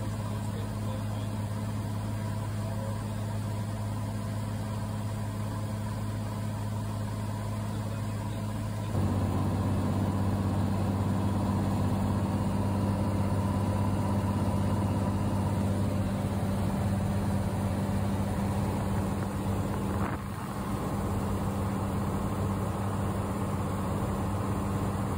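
Cessna 182's piston engine and propeller droning steadily as heard inside the cabin, with airflow hiss above it. The drone steps up louder and fuller about nine seconds in and dips briefly around twenty seconds.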